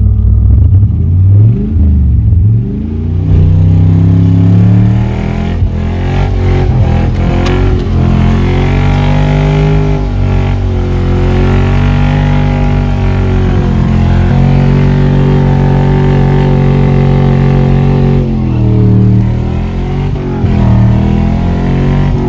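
Carbureted 4.8-litre V8 with headers in a 1999 Chevrolet S10 pickup, heard from inside the cab under way. The revs dip and climb in the first few seconds, hold steady through the middle, then drop and rise again near the end.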